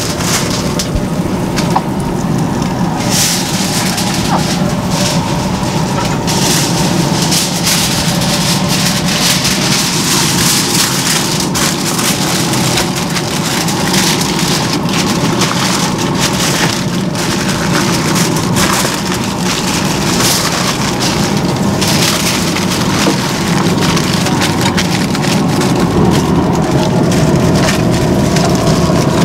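Aluminium foil being wrapped and pressed down by hand, crinkling and crackling, heaviest through the first two-thirds, over a steady low hum.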